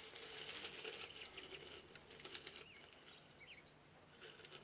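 Faint rustling and crackling of dried bell pepper flakes being scooped by hand into a small glass jar, with a few light clicks. Faint bird chirps sound in the background.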